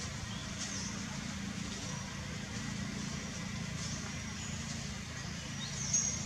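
Brief high-pitched squeaks from a baby macaque, a few times, the loudest near the end, over a steady low hum like a distant engine.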